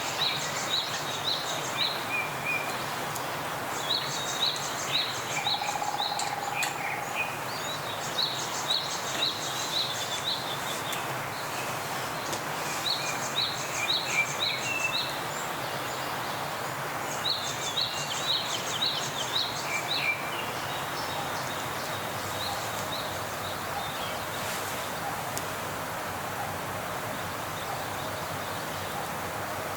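A bird calling in bouts of four to six quick, clear notes, repeated every few seconds for the first twenty seconds, over a steady rushing background.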